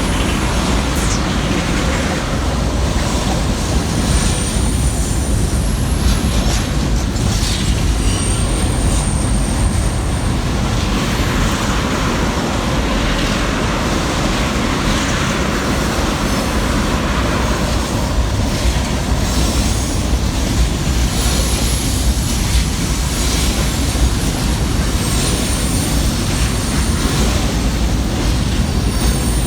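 Long freight train rolling slowly past, a steady rumble of wheels on rail, with brief thin high squeals from the wheels now and then.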